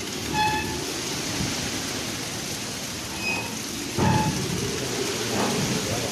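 Heavy rain falling steadily on a road and fields. A few brief high calls sound over it, and there is a sudden low rumble about four seconds in.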